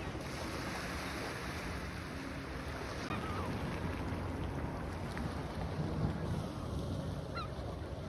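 Wind on the microphone and waves washing onto the lake shore, steady throughout, with a few faint gull calls: one about three seconds in and another near the end.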